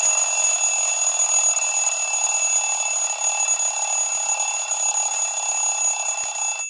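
An LG phone alarm tone: a loud, continuous alarm-clock-style ringing with a steady high pitch, fading a little and stopping just before the end.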